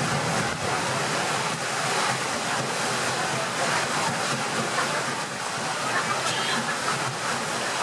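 Steady rush of water churned along the side of the paddle steamer Waverley under way, mixed with wind buffeting the microphone.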